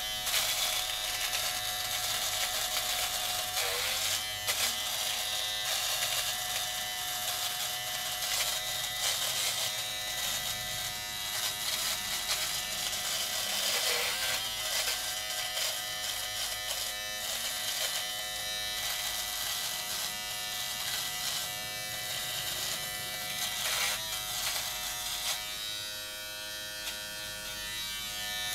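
Philips Norelco MG9000 cordless all-in-one trimmer, fitted with the body-trimmer head and its skin guard removed, running steadily as it cuts facial stubble. Its buzzing hum dips briefly in pitch a few times.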